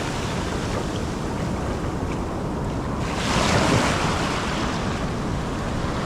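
Surf breaking and washing up the beach, with wind buffeting the microphone; the wash swells louder about three seconds in.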